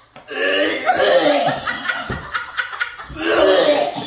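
Men laughing and gagging in fits after tasting fermented bean curd, with a run of short choking heaves around the middle.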